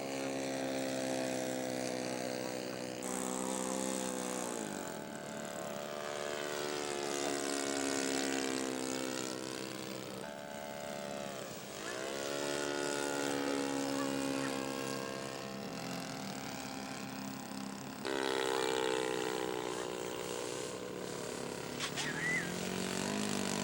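Radio-control scale model airplane's engine running in flight, its pitch dropping twice as the model passes by.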